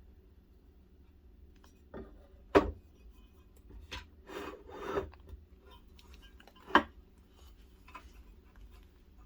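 Workshop handling noises: two sharp knocks about four seconds apart, with a stretch of scraping and rubbing between them.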